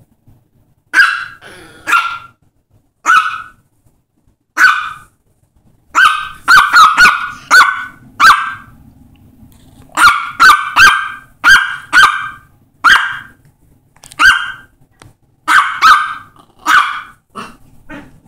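Yorkshire terrier barking at its new dog bed in short, high-pitched yaps, about twenty of them in irregular bursts, some in quick runs of three or four.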